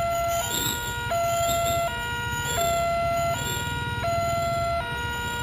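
Railway level-crossing electronic warning alarm sounding, alternating between two tones about every three-quarters of a second, the signal that a train is approaching and the barriers are down. A vehicle engine idles underneath.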